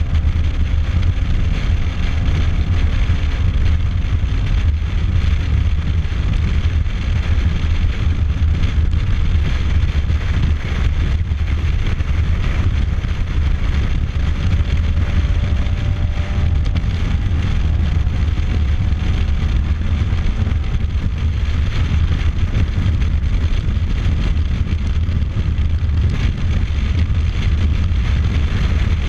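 Steady wind rush and low rumble of riding an open motorcycle at highway speed, with engine and tyre noise underneath.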